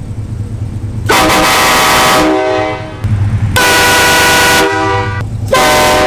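Three train-style air horns blown one after another for comparison, each blast a loud steady chord of several notes with its own pitch. There are two blasts of about a second each, and a third begins half a second before the end.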